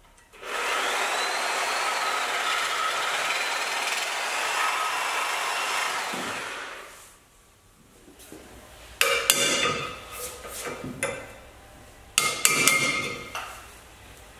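Power saw with a flexible metal-cutting blade cutting through the corroded, seized inner ring of a rubber suspension bushing in an aluminium trailing arm, a steady rasping cut for about six seconds. After a pause come several sharp metal knocks and clinks as the ring is worked loose.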